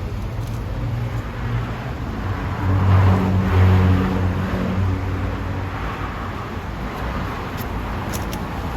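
Road traffic rumble, with a motor vehicle's engine hum swelling and fading as it passes close by, loudest about three to four seconds in.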